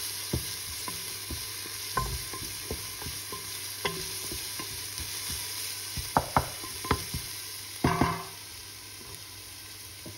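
Chopped onion sizzling in hot oil in a pot, stirred with a wooden spatula that scrapes and knocks against the pan. A louder clatter comes just before eight seconds in; after that the stirring mostly stops and the sizzle goes on a little quieter.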